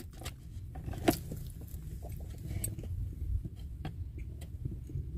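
Inside a parked car: a low steady rumble with scattered small clicks and rustles, the sharpest click about a second in.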